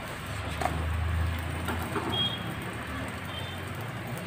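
A paratha being turned with a knife in a kadhai: a few faint taps and scrapes of the blade against the pan, over a low rumble that swells and fades during the first two seconds.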